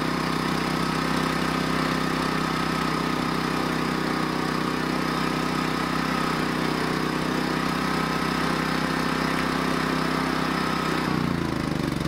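Champion 3400 dual fuel inverter generator running steadily on gasoline. It starts on gas now that it has a charged battery. About eleven seconds in its note changes and starts to drop as it is switched off.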